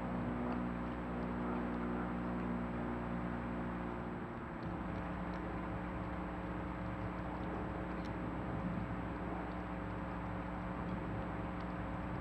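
Steady low mechanical hum made of several steady tones over an even hiss; the mix of tones shifts about four seconds in, with a few faint ticks.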